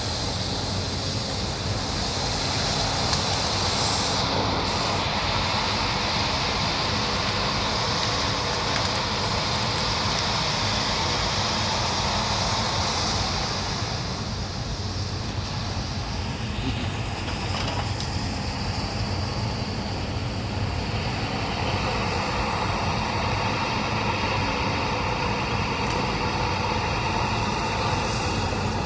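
Caterpillar 568 tracked forest machine running at working speed, its diesel engine and hydraulics driving the grapple and swing as it handles logs. A high hiss is strong at first and eases about halfway through, leaving the engine's steady drone and a whine.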